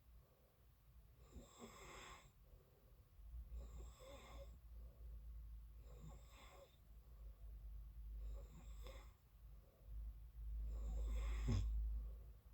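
A person snoring in sleep, five snoring breaths about two and a half seconds apart, over a low rumble that grows louder toward the end.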